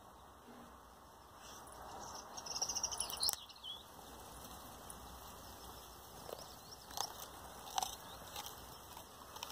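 A Boxer/Border Collie cross dog crunching and chomping on a raw broccoli stalk, with a run of crunchy bites about two to three seconds in and a few single snaps later. Birds chirp faintly.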